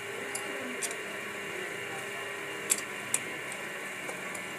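Steady background hum with four short, sharp clicks scattered through it.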